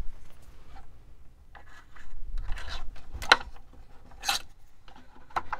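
Hands and tweezers handling silicone fuel tubing as it is worked through the model plane's fuselage: a few short rubbing and scraping sounds, with a sharp click a little past the middle.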